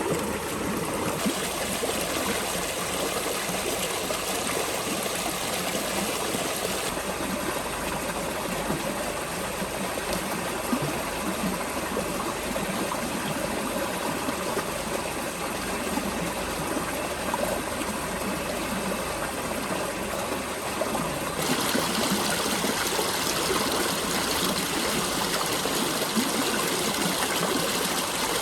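Steady rushing of flowing water, like a stream, with its hiss changing abruptly a few times and growing louder and brighter about three quarters of the way in.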